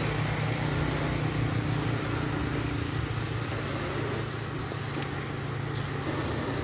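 A motor running steadily with an even low hum, under a constant hiss.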